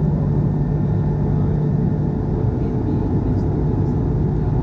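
Airbus A220-300 cabin noise in the climb after takeoff: its Pratt & Whitney PW1500G geared turbofans and the airflow make a steady drone with a low hum, heard from a window seat over the wing.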